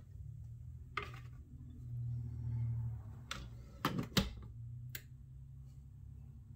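Several separate sharp clicks and knocks over a low steady hum, the loudest a quick pair about four seconds in.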